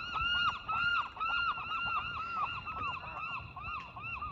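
Waterbirds calling in a steady, repeated series of honking notes, about three a second, each note rising and falling in pitch.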